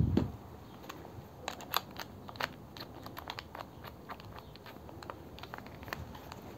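Scattered light clicks and ticks from a cordless drill being handled and fiddled with by hand; the motor is not running.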